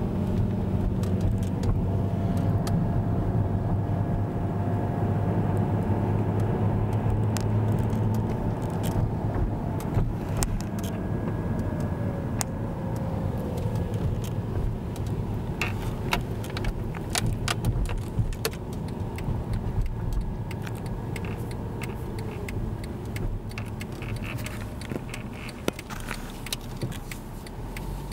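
Car cabin noise while driving: a steady low engine and road rumble, with scattered light clicks and rattles from about nine seconds in, thickest in the second half.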